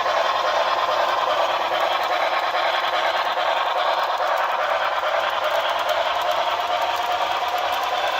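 HO scale Broadway Limited Paragon4 New York Central Hudson model steam locomotive running at high speed: its onboard sound system's rapid steam chuff blends with the wheels on the track into a steady rushing clatter.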